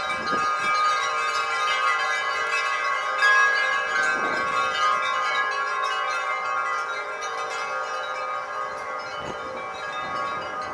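Dozens of long metal tubular wind chimes hanging in a tree, ringing together continuously in many overlapping tones, a little louder about three seconds in.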